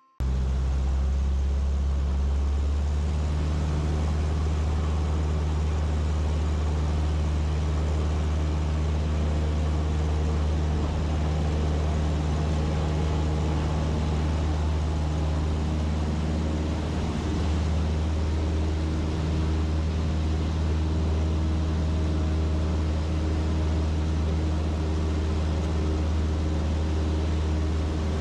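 Cessna 152's four-cylinder Lycoming O-235 engine and propeller idling steadily on the ground, with a low drone and even overtones.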